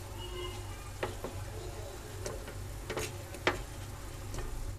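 A spatula lifting fried paneer cubes out of a frying pan, giving about five light clicks and taps against the pan and plate, over a faint sizzle of the hot oil and a steady low hum.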